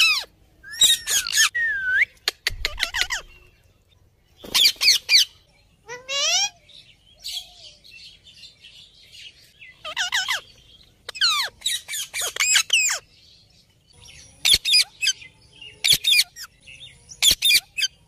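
Indian ringneck parrots calling in repeated bursts of rapid, high squawks and chatter, with short pauses between the bursts.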